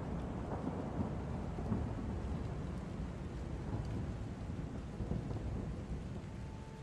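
Low rumbling noise of wind buffeting the microphone outdoors, slowly dying down toward the end, with a few faint ticks.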